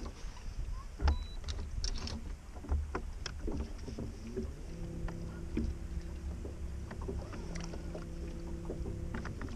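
Knocks and clicks as fishing rods are handled on a bass boat's deck, over a low rumble of wind and water. About halfway through, a bow-mounted electric trolling motor starts with a steady hum and runs until just before the end.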